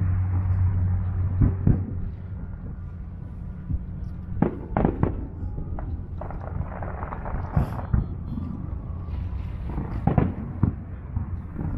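Fireworks display heard from a distance: aerial shells bursting in irregular booms and bangs over a steady low rumble, with a cluster of sharp bangs about four to five seconds in and more around ten seconds.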